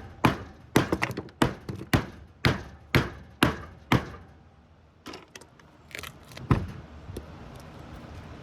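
Hammer blows on a scrap transformer's glued laminated core, knocking the layers loose: about eight sharp strikes, two a second, for the first four seconds, then a few lighter knocks and clatter.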